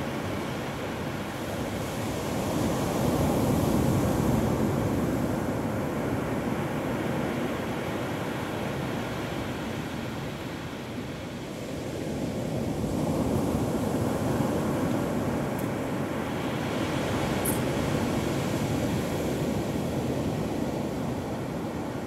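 Surf breaking on a sandy beach: a steady rush of waves that swells louder about three seconds in and again from about fourteen to eighteen seconds.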